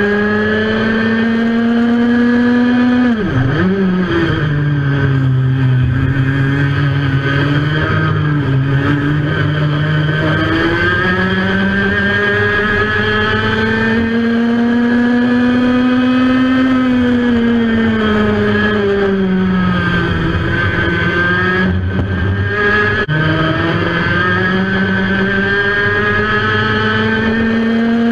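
IAME X30 125cc two-stroke kart engine heard onboard, revving up and down while racing. Its pitch drops sharply about three seconds in, stays low for several seconds, climbs to a high whine, falls again, and climbs once more near the end.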